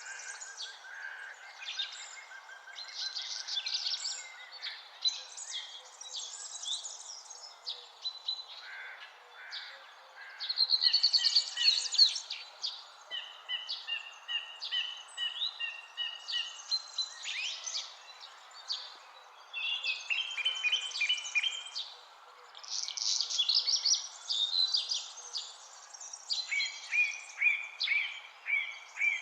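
Several songbirds singing and chirping at once, with fast trills and runs of repeated high notes, over a steady background hiss. The song is busiest and loudest a little past a third of the way in.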